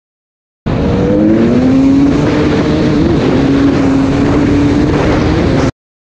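Enduro dirt bike engine running hard at high revs, loud, its pitch rising briefly early on and then holding fairly steady over a rough low rumble. The sound starts suddenly about half a second in and cuts off suddenly near the end.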